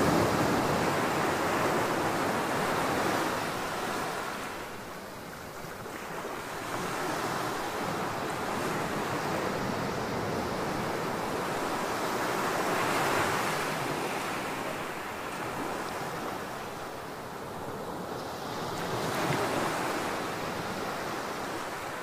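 Surf breaking and washing on the shore in slow swells, with wind buffeting the microphone.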